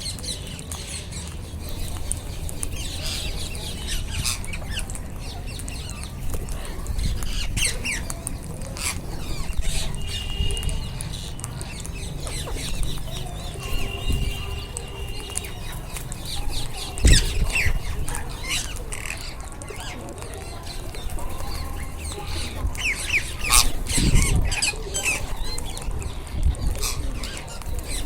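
A flock of rose-ringed parakeets (Indian ringnecks) calling with many short, shrill squawks and chatter, a few calls held as brief steady notes, over a low rumble. A couple of louder thumps stand out, one a little past halfway and one near the end.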